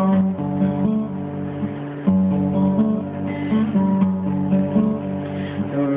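Acoustic guitar strummed in steady chords, with a fresh strong strum about two seconds in; no singing.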